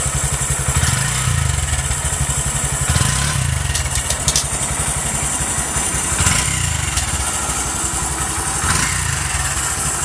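Honda Grom JC75 single-cylinder engine running at a steady idle, with a few brief rises in engine speed and a short run of light clicks near the middle.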